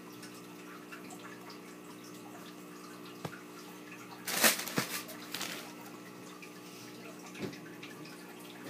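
Steady low electrical hum with a few light clicks and a brief rustle about four and a half seconds in, from hands handling the slides.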